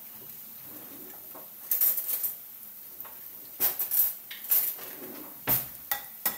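Eggs being cracked against a ceramic bowl, with sharp taps and clinks on the china: a cluster about two seconds in and several more from about halfway on.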